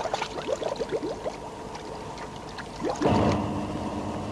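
Air bubbles in water gurgling in many short rising blips, thinning out after the first second or so. About three seconds in, a louder steady hum with several tones sets in suddenly and holds.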